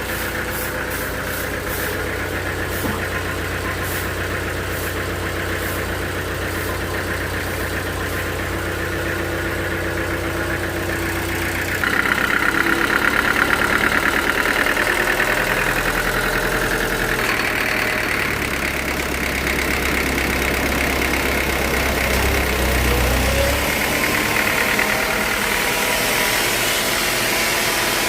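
Sawmill engine running steadily; about twelve seconds in the sound turns suddenly louder and higher, and stays that way.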